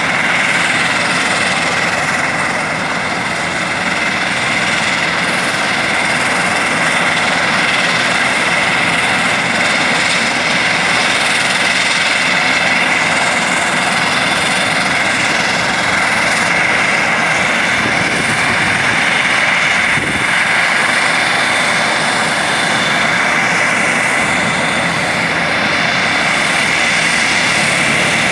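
Bombardier Dash 8 Q400's turboprop engines running loudly and steadily as the airliner starts to taxi: an even roar with a steady high whine over it.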